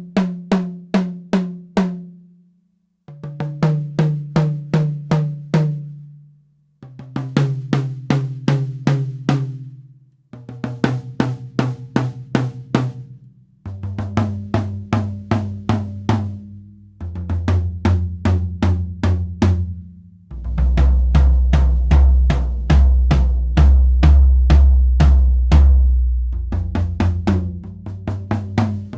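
1980s Saema Hexa drum kit being sound-checked drum by drum. Each drum is struck repeatedly, about four hits a second, for roughly three seconds, and the pitch steps down from the highest tom to the lowest. The deepest drum, about two-thirds through, is the loudest and rings longest, and a higher drum starts again near the end.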